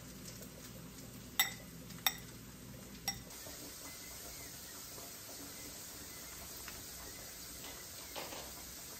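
Metal utensil mixing raw ground meat in a ceramic bowl, striking the bowl three times with short ringing clinks spaced a little under a second apart.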